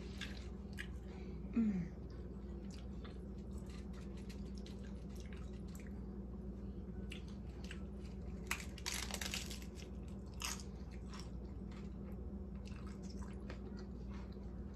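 Close-up chewing of crunchy food: wet mouth sounds and many small crackling crunches, thickest a little past the middle, with one sharper crunch just after.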